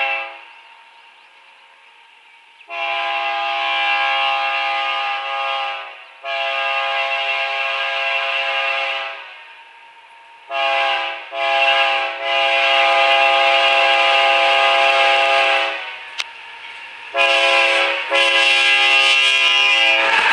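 Multi-chime air horn of an approaching Ferromex diesel locomotive sounding a series of blasts: two long, a short and a long, the standard grade-crossing warning, then another long blast near the end.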